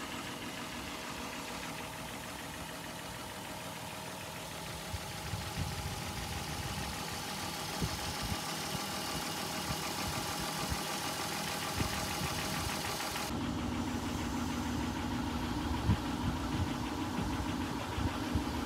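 Volkswagen 2.8 VR6 engine idling with a steady knocking sound, which the owner takes for the failing, leaking water pump. About two-thirds of the way through, the sound changes as the listening point moves from over the engine bay to beside the open driver's door.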